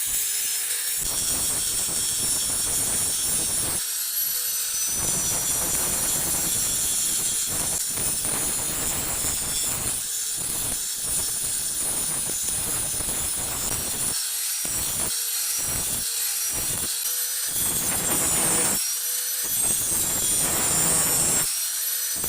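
Steel being abraded or scraped in shaping a machete blank: a continuous scraping hiss broken by short pauses, with a faint steady hum heard in the pauses.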